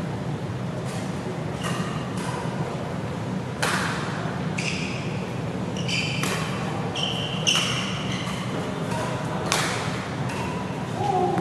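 Badminton doubles rally: rackets strike the shuttlecock in sharp pops, about every second or two from about three and a half seconds in, with short squeaks of shoes on the court mat. A steady low hum runs underneath.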